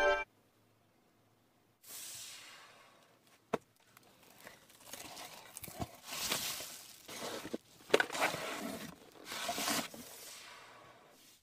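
Bubble wrap and cardboard packaging crinkling and rustling as a laptop is unpacked from its box, starting about two seconds in, with a few sharp clicks among the rustles.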